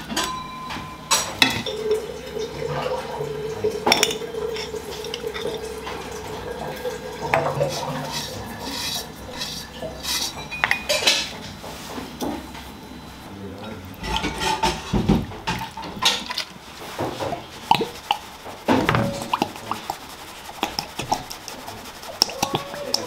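A metal spoon clinking, tapping and scraping against a steel plate and a glass mixing bowl as spice pastes and dried herbs are scooped in, a run of irregular sharp clicks. A steady hum runs for about five seconds starting two seconds in.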